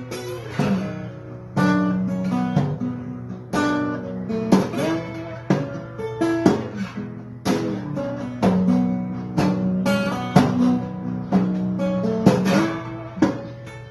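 Acoustic guitar strumming chords in a steady rhythm, with an accented strum about once a second and the chords ringing between the strokes.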